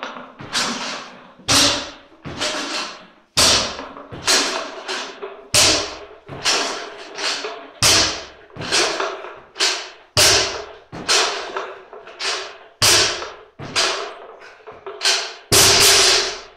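A 110 kg barbell with weight plates being power cleaned rep after rep without pause. About every two seconds comes a heavy thud of the plates meeting the floor, seven in all, the last the loudest and longest, with lighter clanks and rattling of the bar and plates between them and a metallic ring after each strike.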